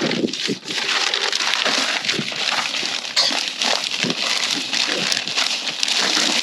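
Compost and soil being worked in a garden bed: continuous scraping and crunching with many short gritty strokes.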